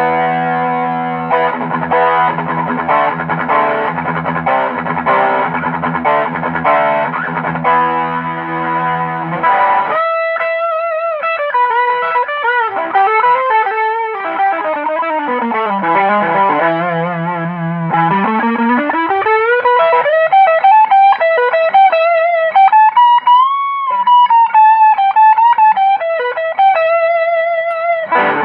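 Distorted electric guitar played through effects. For about the first ten seconds it plays dense, fast rhythm chords. Then it switches to a sustained single-note lead line with bends and vibrato.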